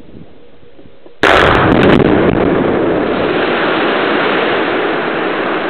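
Quarry blast in a limestone and dolomite face: about a second in, the charges go off with a sudden loud bang and a few sharp cracks, followed by a long rumble of the shattered rock face collapsing and falling, slowly fading.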